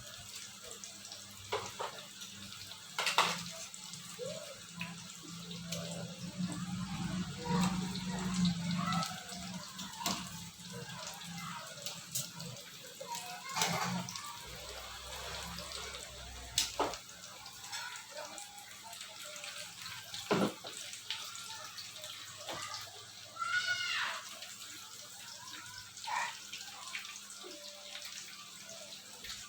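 Sweet potato pieces sizzling as they fry in hot oil, with scattered clicks and knocks of a utensil against the pan as they are turned.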